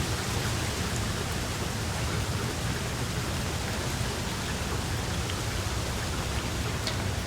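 Steady rain falling: an even hiss of rain, with a few sharper drop ticks here and there.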